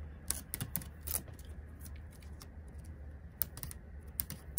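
Scattered light clicks and crackles of plastic shrink wrap being cut and peeled with a knife along the edge of a cardboard box, about seven sharp ticks spread irregularly.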